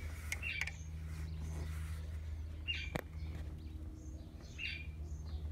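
A bird chirping three times, about two seconds apart, over a steady low hum, with a single sharp click about three seconds in.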